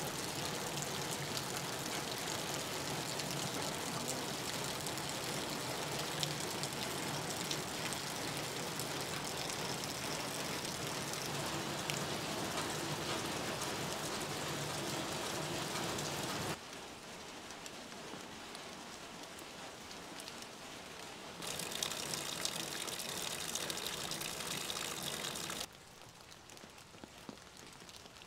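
Steady rain falling. It drops abruptly to a softer level about two-thirds of the way through, comes back louder, then softens again near the end.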